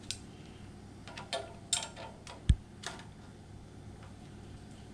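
Hand tools clicking and tapping against the roller rocker arms and their adjusting nuts on a small-block Chevy cylinder head while the valve lash is being set: a few scattered sharp clicks, with one dull thump about two and a half seconds in.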